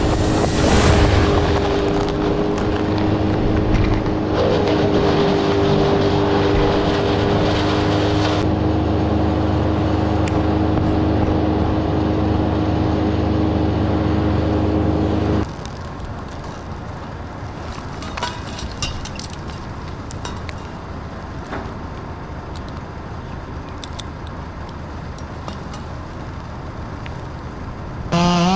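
A steady engine drone that cuts off abruptly a little past halfway, leaving a quieter background with faint clicks and rustles. Right at the end a chainsaw revs up with rising pitch.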